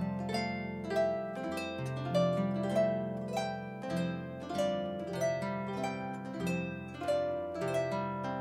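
Concert harp played solo: a flowing melody of plucked notes that ring on, over low bass notes that change every second or two.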